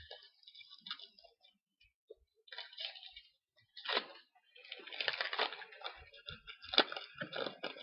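Foil trading-card pack wrappers and cards being handled: crinkling and crackling in four short bursts with brief pauses between.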